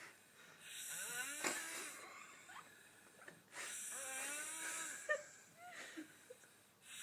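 A drunk woman snoring: two long snores about three seconds apart, each with a wavering, whistle-like tone running through it.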